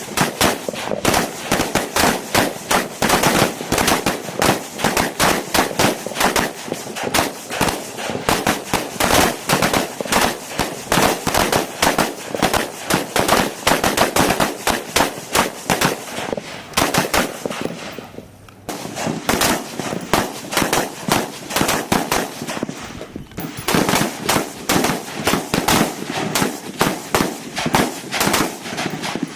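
Rapid, irregular rifle fire from several guns shooting at once, the shots overlapping several to the second, with a brief lull about eighteen seconds in.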